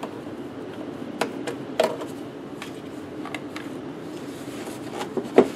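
Scattered sharp clicks and taps of a screwdriver and plastic parts as the air intake duct is worked loose from the intake, about half a dozen of them, the loudest near the end, over a steady low hum.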